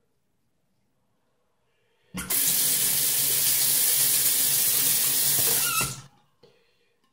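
Bathroom sink tap turned on about two seconds in, water running hard into the basin for about four seconds, then shut off abruptly, with a light knock just after.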